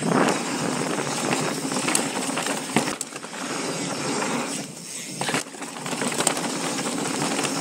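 Mountain bike descending a dirt trail: tyres rolling over loose dirt and rocks, with the bike rattling and clacking over the bumps and wind rushing on the helmet camera's microphone. The noise dips briefly just before five seconds in.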